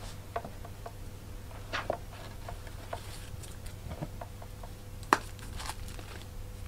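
Rustling of a fabric dust bag and shoebox as a strappy high-heel sandal is drawn out and handled, with scattered small clicks and a sharper knock about five seconds in.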